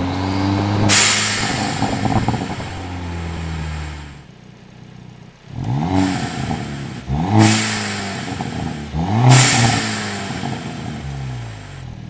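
Hyundai Elantra N's turbocharged 2.0-litre four-cylinder, heard from inside the cabin. It falls in pitch as the car slows, with a burst of crackle about a second in. After a short lull it is revved three times in quick succession, each rev rising and falling with exhaust crackles on the overrun.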